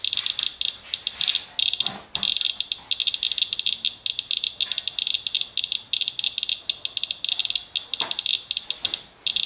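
Radalert Inspector Geiger counter chirping rapidly, a dense irregular stream of high clicks, one for each detected count, with brief gaps. The fast rate is the sign of a radioactive rainwater sample wiped from a truck, which the display puts at about 0.25 mR/hr, some 25 times background.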